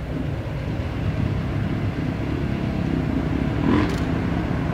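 Diesel locomotives approaching, with a steady low engine rumble. A short burst of noise comes about four seconds in.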